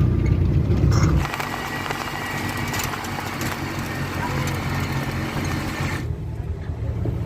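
Motor vehicle engine running with a low rumble. About a second in the sound changes abruptly to a steadier hiss with a faint hum, and the low rumble comes back near the end.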